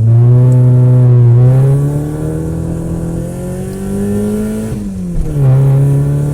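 Race-car engine sound effect, revving with a slowly rising pitch, then falling back quickly about five seconds in and holding steady.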